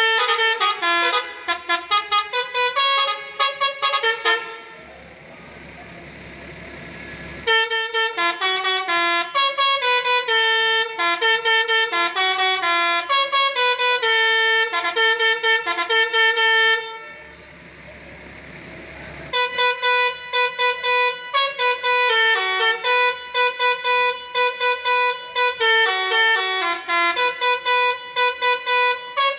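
Multi-tone musical bus horn (basuri, 'telolet' style) playing a fast tune of short notes, in three runs. It breaks off twice for a few seconds, leaving only a low hum.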